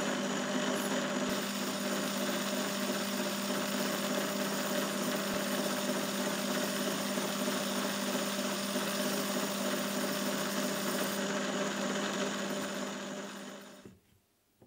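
Myford lathe running steadily while a high-speed steel cutter bores a hole and recess in a stainless steel plate, a steady hum with an even hiss over it. It fades out about a second before the end.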